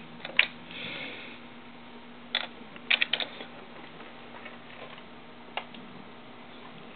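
Light taps and clicks from handling a Samsung Behold touchscreen phone while a code is keyed in on its dial pad: a single tap soon after the start, three quick ones near the middle and one more later, over a faint steady hum.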